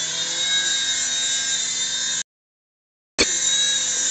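Small indoor RC helicopter's electric motor and rotors running with a steady high whine. About halfway through, the sound cuts out completely for about a second, then comes back with a click.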